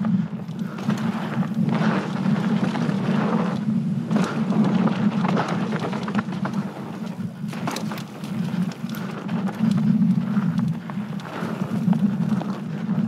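Mountain bike riding fast down a dirt singletrack: a steady rumble of wind buffeting the bike-mounted microphone and tyre noise on the dirt, swelling and fading with speed, with scattered sharp clicks and rattles from the bike over bumps.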